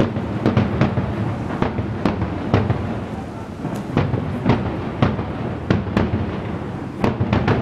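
Aerial fireworks shells bursting at a distance: a rapid, irregular string of about fifteen sharp bangs, some only a fraction of a second apart, over a continuous low rumble.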